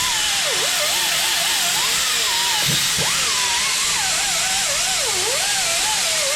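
A rotary power tool spinning against metal, scouring corrosion off the steering knuckle's wheel-bearing bore. Its whine wavers up and down in pitch as the tool is pressed on and eased off, over a steady hiss.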